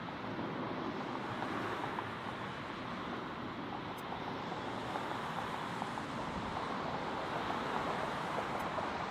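Steady roar of airliner jet engines, an even rushing noise with no clear pitch.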